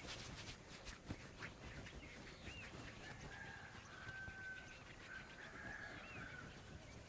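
Faint bird calls: a few short, arching whistles and some held thin notes, over scattered soft clicks and rustling.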